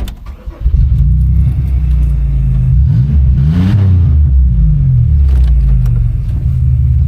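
Car engine with its exhaust mostly cut off, running loud and low, coming up sharply about a second in. It revs up and back down around three to four seconds in, then settles into a steady drone as the car drives.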